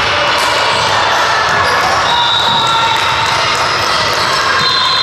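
Basketball bouncing on a hardwood gym court over steady gym noise with voices.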